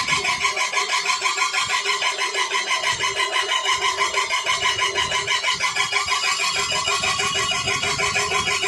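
Prince Senior power grinder running steadily, most likely grinding dal, with a fast, even pulsing and a squeaky whine.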